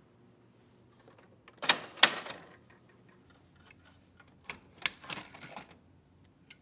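Lexmark XC2132 colour laser printer being opened for a toner change. Two sharp plastic clicks with a brief rattle come as the front cover is unlatched and swung open. Then come more clicks and a short plastic rattle as the used black toner cartridge is pulled from its slot.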